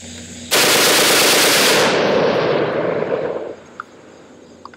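HK51 short-barrelled 7.62 NATO machine gun firing a full-auto burst. It starts about half a second in and runs for about a second and a half, then the report dies away over the next second or so.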